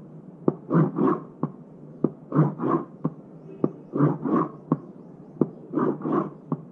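Heart auscultation recording of the ejection systolic murmur of aortic stenosis: about four slow beats. Each is a short heart sound followed by a harsh crescendo-decrescendo murmur that begins after S1 and ends before S2.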